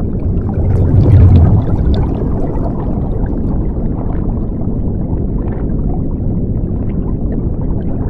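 Underwater bubbling sound effect: a muffled low rumble with gurgling bubbles, swelling to its loudest about a second in and then holding steady.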